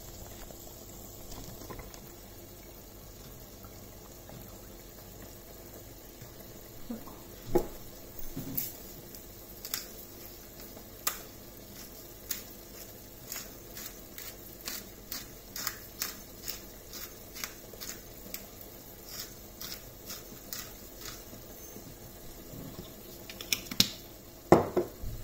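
Pot of minced beef and gravy simmering on a gas hob, bubbles popping in irregular sharp clicks over a steady low hiss as the sauce reduces. A few louder knocks near the end.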